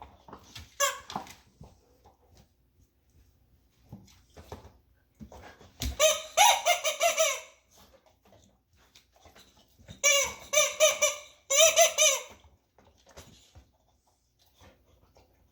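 Rubber chicken squeaky toy squawking as a boxer dog bites down on it: a short squeak about a second in, then quick runs of squeaks around six seconds, ten seconds and twelve seconds in.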